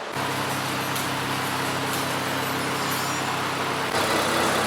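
A car engine running steadily, a low even hum under a broad hiss. It starts abruptly and shifts slightly about four seconds in.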